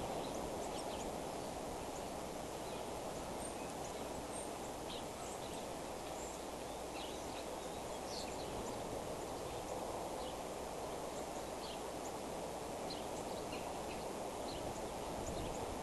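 Steady low outdoor rushing noise, with frequent brief high chirps from small birds scattered throughout.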